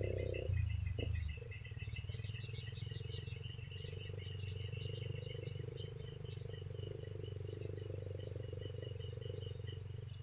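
Evening chorus of insects by a river: fast, rhythmic high chirping trills going on throughout, one brief louder trill about two seconds in, over a steady low drone.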